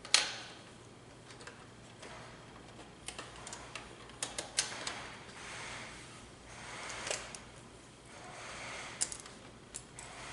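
Scattered light clicks and soft rustling from handling a length of insulated wire and working its end with wire strippers, ahead of connecting it to a contactor's coil terminal.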